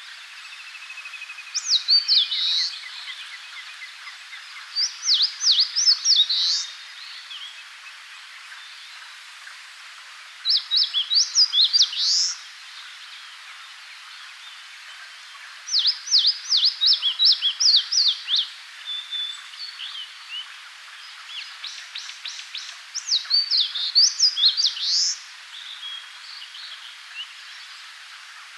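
Eastern crowned warbler singing its territorial song: five phrases a few seconds apart, each a quick run of high notes ending in a drawn-out note, the song heard in Japan as "chiyo chiyo bii".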